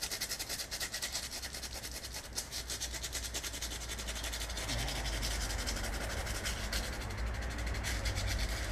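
Hand-scuffing the inside of a small metal lamp reflector cup with abrasive paper, in quick, even back-and-forth rubbing strokes. The surface is being keyed so that it will bond to the headlight reflector.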